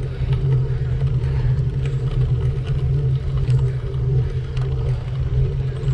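Steady low rumble of a road bike rolling over asphalt, heard through a handlebar-mounted action camera's microphone, with scattered light ticks and rattles.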